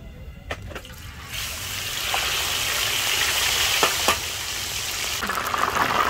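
Battered fish strips going into oil at about 180 °C in a disca (plough-disc cooker): a loud frying sizzle sets in suddenly about a second in and keeps bubbling hard. A few sharp clicks sound over it.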